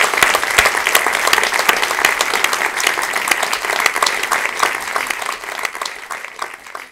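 Audience in a large lecture theatre applauding, a dense patter of many hands clapping that fades out near the end.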